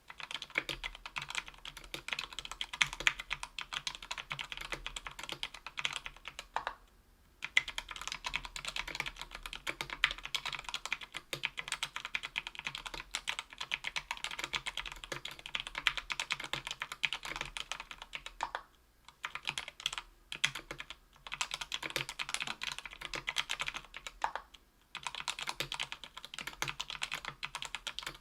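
Typing on a Tofu 60% aluminium mechanical keyboard with JWK Rara 62g tactile switches lubed with Krytox 205g0, on an aluminium plate: a quick, continuous run of keystrokes, broken by short pauses about seven seconds in and a few times in the second half.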